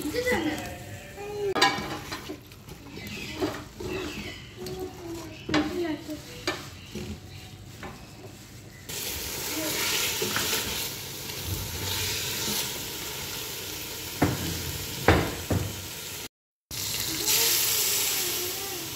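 Chicken pieces frying in an aluminium pot, stirred and scraped with a silicone spatula. The sizzle turns louder and steady about nine seconds in, and near the end water poured into the hot pot hisses.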